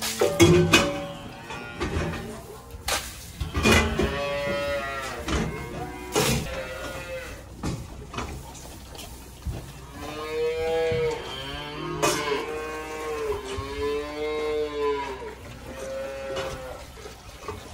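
Young dairy calves bawling repeatedly at milk-feeding time: several long, drawn-out calls, some overlapping, with a few sharp knocks in the first seconds.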